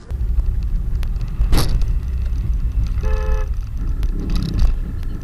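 Steady low rumble of a car driving, recorded by a dashcam inside the cabin, with a brief sharp noise about a second and a half in and a short car horn blast about three seconds in.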